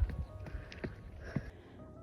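Footsteps of a hiker climbing wooden tie steps: a few dull, irregular thuds over a low rumble, stopping about a second and a half in.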